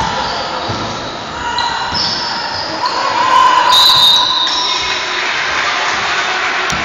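Basketball game play on a wooden court in a sports hall: the ball bouncing and short high squeaks, loudest about four seconds in as players crowd under the basket.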